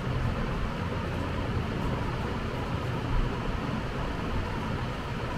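Steady background noise, an even hiss over a low hum, with one soft low bump about three seconds in.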